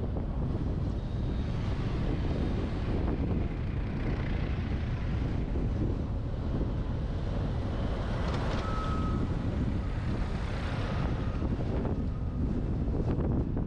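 Wind buffeting a truck's roof-mounted action camera while driving, over steady low road and engine rumble. A short high tone sounds about eight and a half seconds in.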